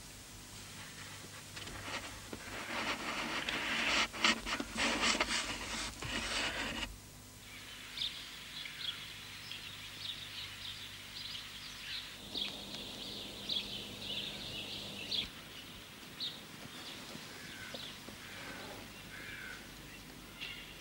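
Several seconds of rough scraping with sharp knocks, then small birds chirping and twittering in short high calls.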